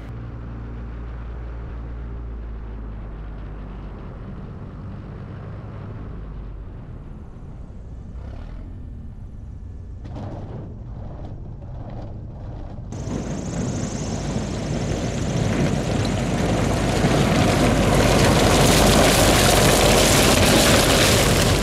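Cessna 172 engine and propeller. At first it is a steady, moderate drone on the approach. About two-thirds of the way through, it switches suddenly to much louder engine noise with a rushing propeller blast, which keeps getting louder as the plane taxis close past the microphone.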